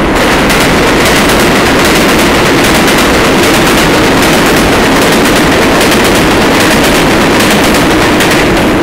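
R142A subway train running through the station at speed on the express track, close by: a loud, steady rush of wheels on rail with a rapid, irregular clatter of wheel clicks.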